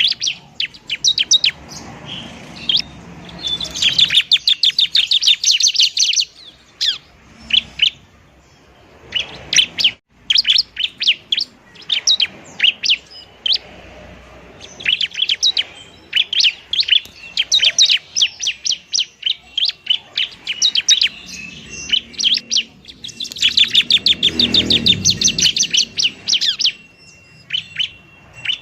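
Bar-winged prinia (ciblek) singing its rapid fighting song: fast trains of sharp, high chirps repeated many times a second, in runs of a few seconds separated by short breaks.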